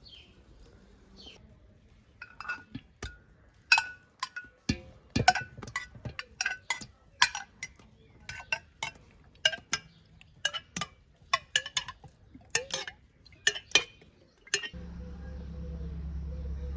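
Kitchenware clinking: repeated sharp, irregular clinks of a utensil against a dish or pot, two or three a second, each with a short ring. Faint bird chirps come at the start, and a steady low hum sets in near the end.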